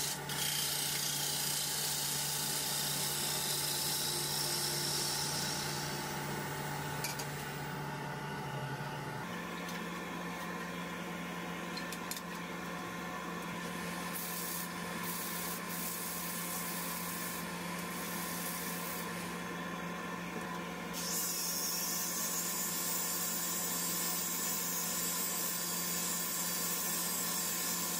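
Wood lathe running while a scraper cuts the inside of a zelkova bowl with a hissing, rasping sound for the first few seconds, then sandpaper rubs on the spinning wood. About three quarters of the way through, an angle grinder fitted with a sanding disc starts, adding a high steady whine and hiss.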